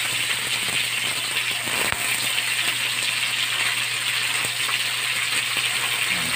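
Pieces of pork sizzling in hot oil in a wok as they are dropped in by hand, a steady frying hiss with a sharp click about two seconds in.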